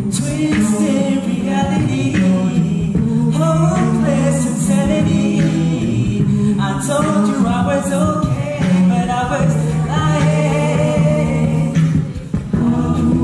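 A cappella group singing into microphones: several voices carry the melody and harmonies over a sustained sung bass line, with sharp vocal-percussion hits roughly every second.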